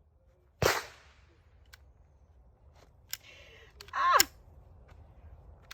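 A single gunshot about half a second in, sharp and loud with a short ringing tail. Near four seconds a short vocal exclamation slides down in pitch.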